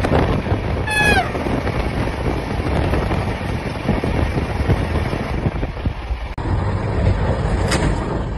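Rumble and rush of a train passing close by on the adjacent track, with wind buffeting the microphone. About a second in, a short horn blast from the oncoming train, falling in pitch.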